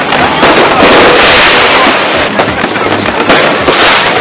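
Fireworks going off, a dense run of cracks and bangs.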